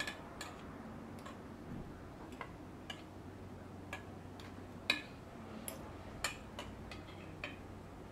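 Light clicks and taps of utensils on tableware, about a dozen at irregular intervals, the sharpest about five seconds in, over a quiet room.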